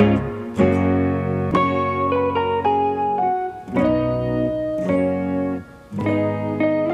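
Instrumental background music: a plucked guitar playing a melody of single notes.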